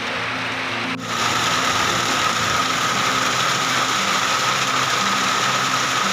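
Hailstones and heavy rain pelting down in a dense, continuous clatter, over low background music. About a second in, the sound cuts to a louder, harsher hail rattle with a faint steady high tone in it.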